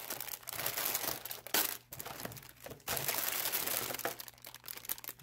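Clear plastic bags full of LEGO pieces crinkling and rustling as they are handled and lifted out of a plastic storage bin, with a few short pauses.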